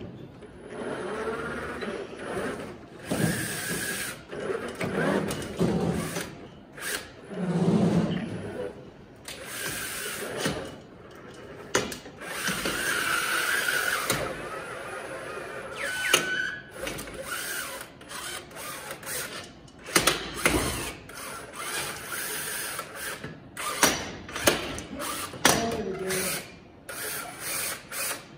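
FRC robot's electric climbing mechanism hauling it up steel climbing bars from the mid rung toward the traversal rung. Motors and gearboxes whine in spells, with many sharp clanks and knocks as its hooks catch and swing onto the bars.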